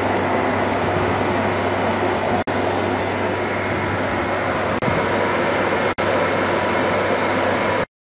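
Milk chiller's refrigeration unit running, compressor and condenser fans, while it is charged with refrigerant: a steady hum under an even rush of air, broken by a few brief dropouts.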